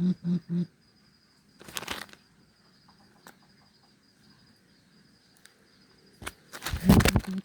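A coucal gives the last few deep, even hoots of a series, about four a second, then falls silent. Two bursts of rustling follow, a short one about two seconds in and a louder, longer one near the end.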